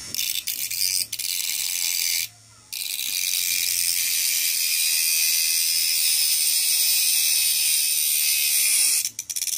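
Home-made battery-powered mini grinder, a small DC motor spinning a cutting disc, running at speed with the disc grinding against steel nails: a loud, hissy, high-pitched grind. It stops briefly about two seconds in, then runs on and stops near the end.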